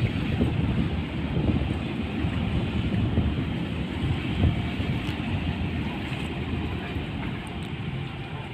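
Steady low rumble of a ro-ro ferry's engines and propeller wash as it berths against the dock fenders, mixed with wind buffeting the microphone.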